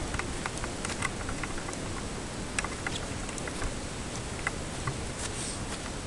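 Steady outdoor background hiss with light, irregular clicks and ticks scattered through it.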